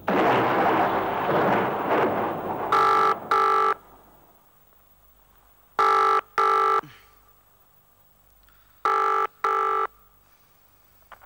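A loud rushing noise that fades after a couple of seconds, then a white push-button desk telephone ringing with three double rings, about three seconds apart.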